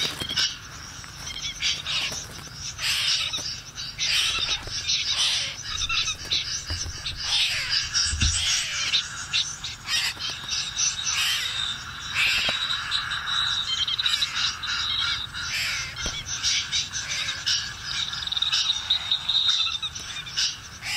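A dense chorus of short animal calls: many quick chirps packed close together, with a steady high trill running under them for much of the time.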